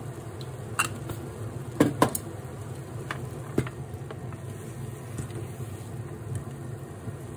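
Steady low fan hum of an induction hob, with a few sharp clicks and knocks as a plastic oil bottle is handled and chopsticks tap a metal tamagoyaki pan. The loudest is a close pair of knocks about two seconds in.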